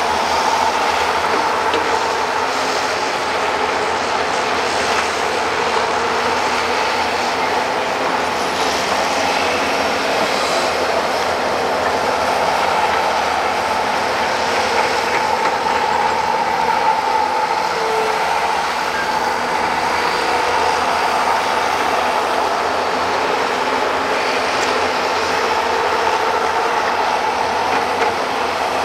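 Several hydraulic excavators working together: a steady, continuous mix of engine and hydraulic drone with some metallic clatter.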